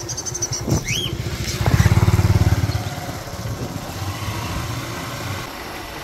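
Small motorcycle engine passing close by at low speed, loudest about two seconds in, then a steadier, quieter engine throb.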